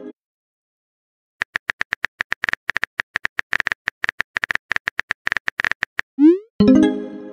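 A rapid, uneven run of short electronic beeps at one steady pitch, like dialogue text blipping onto the screen letter by letter. Near the end comes a quick rising boing, then a short ringing chime that fades.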